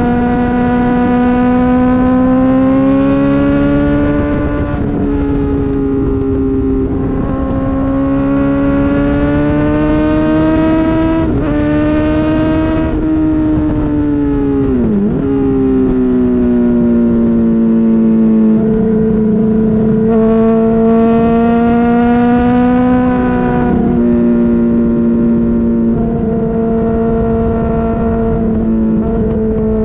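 Honda CBR600RR's inline-four engine running at high revs. Its pitch holds mostly steady with slow rises and falls, and dips sharply and briefly about 11 and 15 seconds in.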